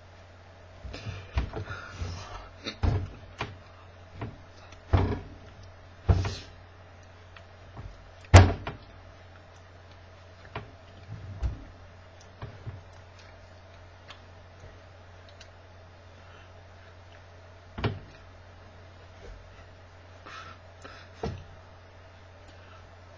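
Scattered thumps and knocks of hands and arms striking each other and the body during ASL signing, a cluster in the first few seconds and single ones later, the loudest about eight seconds in. A steady low hum runs underneath.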